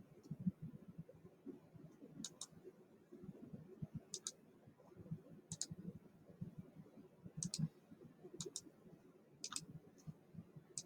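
Computer mouse button clicks, faint and spaced about one to two seconds apart, most of them heard as quick double ticks. Faint low thumps run underneath.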